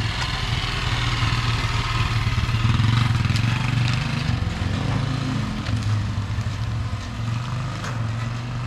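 A small vehicle's engine running steadily, a low even hum that is loudest about three seconds in.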